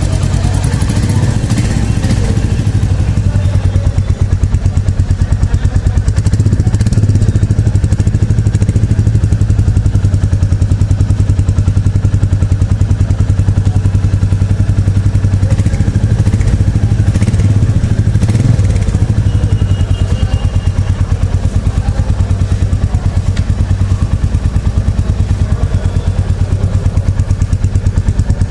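Exhaust of a 350 cc single-cylinder motorcycle idling steadily, an even, rapid beat of firing pulses with a strong low note.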